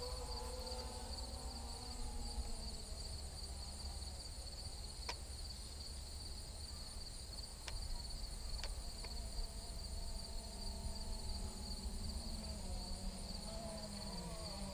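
Steady, high-pitched insect chorus with wind rumbling on the microphone. A faint wavering hum comes and goes underneath, and a few sharp clicks sound around the middle.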